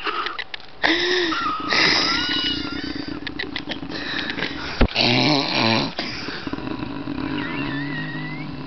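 A man snoring heavily, a few long snores one after another.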